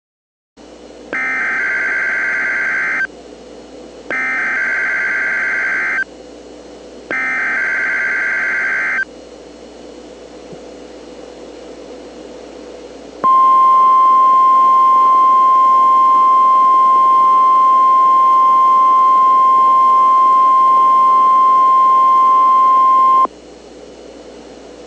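Emergency Alert System test opening. It starts with three bursts of SAME digital header data tones, each about two seconds long and a second apart. After a few seconds of radio hiss comes a single steady attention tone lasting about ten seconds, the National Weather Service's one-tone alert signal, marking the start of a required monthly test.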